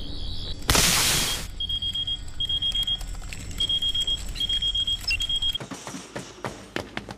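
Electronic science-fiction sound effect: a short burst of hiss about a second in, then five quick runs of high, rapid beeping over a low hum. The hum cuts out near the end, leaving scattered clicks.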